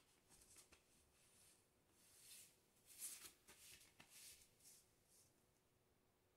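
Faint rustling and scraping of a paper envelope being pushed under a door and sliding across a wooden floor, in a run of short strokes with a slightly louder scrape about three seconds in.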